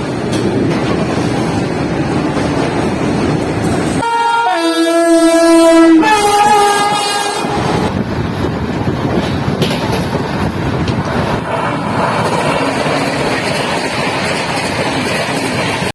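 Indian Railways train running along the track, with the locomotive horn sounding about four seconds in: one note for about two seconds, then a second, higher note for about a second and a half.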